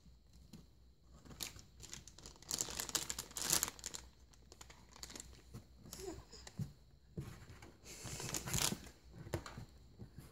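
A crinkled silver foil bag crackling and rustling in several separate bursts as a baby grabs and waves it.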